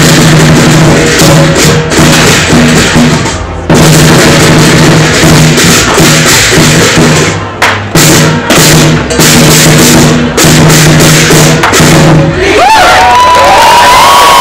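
Lion dance percussion ensemble of drum, gongs and cymbals beating loud and fast, with a sustained ringing low tone, which stops about twelve seconds in. The crowd then breaks into cheering and whoops.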